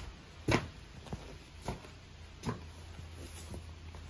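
A few short knocks and scuffs as a car floor mat is laid on a concrete floor and a person gets down onto it, the loudest about half a second in, over a low steady hum.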